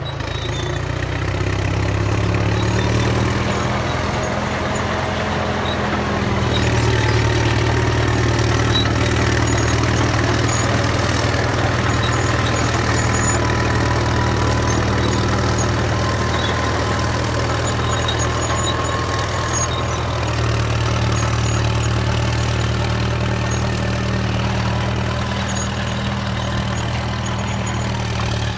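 Caterpillar D7 bulldozer's diesel engine running steadily under load as it works a root rake through brush. The engine note swells about a second in and again around six seconds in, with a faint whine over it.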